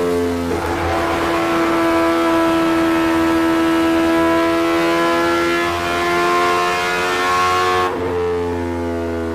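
Car engine running hard at high revs, its pitch holding nearly steady and sagging slightly, then shifting abruptly about eight seconds in.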